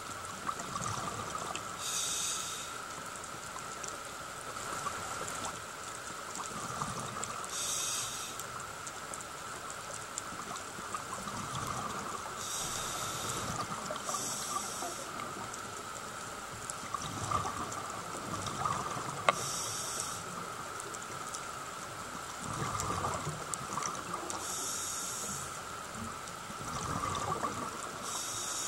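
Underwater scuba regulator breathing: a sharp hiss of inhalation about every five or six seconds, with the rumbling gurgle of exhaled bubbles between breaths. A steady high tone runs underneath.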